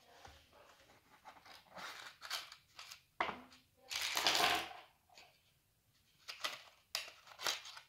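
A small box's inner tray sliding out of its sleeve, with scraping and rustling as it is worked open, loudest about halfway through. Then a few light clicks as small 3D-printed plastic parts are lifted out and set down on the table.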